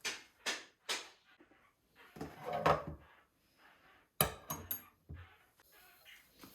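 Household handling sounds: a few separate knocks, a short stretch of clatter, then a quick run of sharp clinks with a brief ring, like items being put away or set down in a kitchen.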